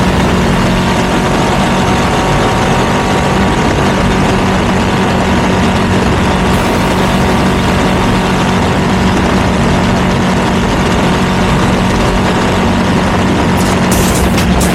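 Ducati V2 twin-cylinder motorcycle engine running through a Termignoni exhaust, holding steady revs with no change in pitch.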